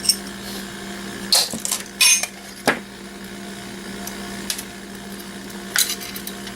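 Several sharp, separate knocks and clicks of small metal and plastic alarm-sensor parts being handled and set down, over a steady low hum.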